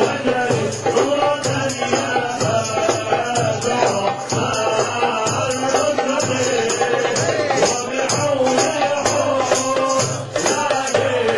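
Sufi hadrah music: a group of voices chanting together over a steady, rhythmic drum beat, with rattling percussion.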